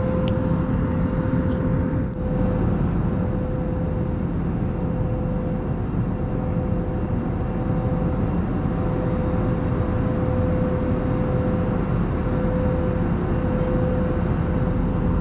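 Jet airliner cabin noise: a loud, steady rumble with a steady mid-pitched whine running through it.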